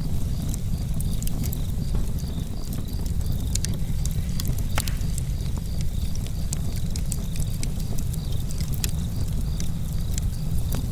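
Wood campfire burning: a steady low rumble of flames with frequent sharp crackles and pops throughout.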